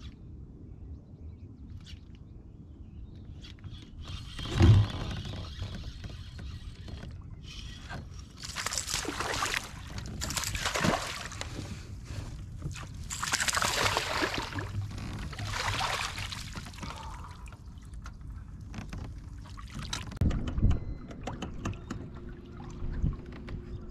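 Water splashing in four or five bursts as a hooked fish thrashes at the surface beside a kayak and is landed with a net. A single thump comes about five seconds in.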